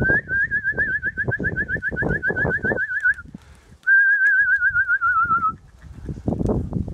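Two long warbling whistles, about seven wobbles a second. The first lasts about three seconds; the second is shorter and slides a little lower at its end. Under them, strong gusts of wind buffet the microphone.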